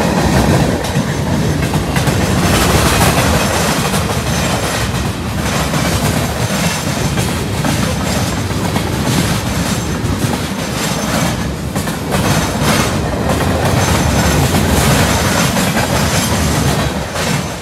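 Freight train of boxcars and flatcars passing close by at speed: a steady, loud rumble of steel wheels on the rails with the clickety-clack of the wheels over the track.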